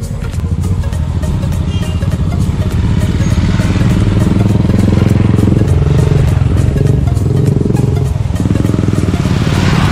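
Several motorcycles riding past close by, their engines growing louder as they approach over the first few seconds and staying loud as the bikes go by.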